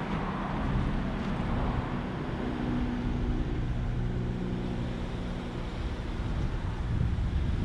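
Car engine running steadily, a low hum that carries a steady droning tone for a few seconds in the middle.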